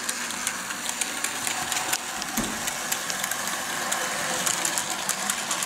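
Heljan OO-gauge model Class 14 diesel locomotive running along the track with a short freight train: a steady mechanical running sound with many small, irregular clicks of wheels on the rails.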